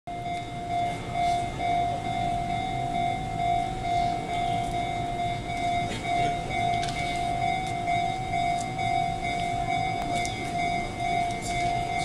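Electronic level-crossing warning bell ringing steadily, one high tone repeating at an even, quick pace, the signal that a train is approaching and the crossing is closed.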